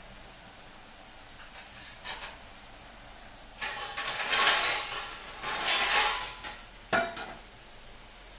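Stainless-steel dishes and utensils clattering: a click about two seconds in, a few seconds of rattling and clinking from about the middle, and a sharp knock near the end.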